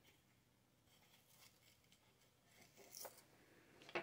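Near silence with a few faint, crisp cuts of a small knife slicing through sweet onion held in the hand, the clearest about three seconds in and just before the end.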